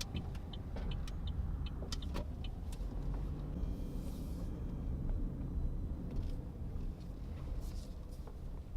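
Car cabin noise while driving: a steady low rumble of engine and road, with scattered faint ticks.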